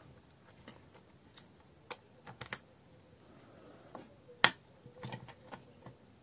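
Scattered small clicks and taps of hard plastic battery-pack parts being handled and pressed into place, with one sharper click about four and a half seconds in.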